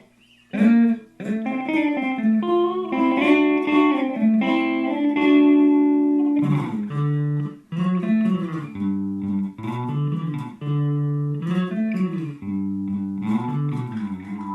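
Hand-built solid-body electric guitar with a flame maple carved top, chambered mahogany body and dual humbuckers, played through a Fender Blues Junior tube amp: a melodic phrase of picked single notes and double stops, with a brief break about halfway through.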